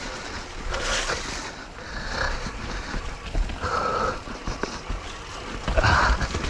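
Mountain bike riding down a rough, muddy trail: a steady rumble of tyres over dirt and rocks with the bike rattling and clicking, broken by a few short hissing bursts about a second apart.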